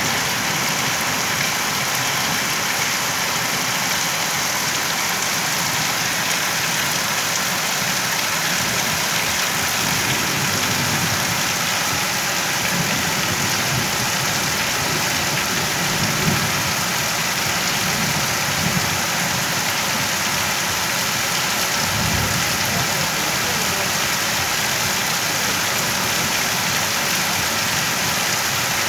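Steady rain falling, an even hiss, with a few soft low rumbles around the middle.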